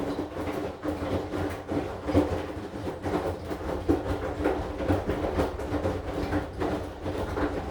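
AQUA AQW-DX12M front-loading washing machine turning its drum with a load of wet laundry: a steady motor hum under a run of irregular knocks and thuds as the clothes tumble.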